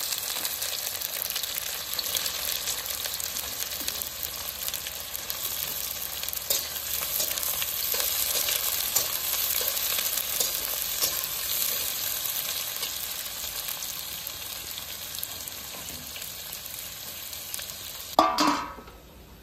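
Sliced onions sizzling as they fry in hot oil in an aluminium kadai, with a slotted metal spatula stirring and scraping through them. The steady sizzle eases slowly, then breaks off near the end after a brief louder sound.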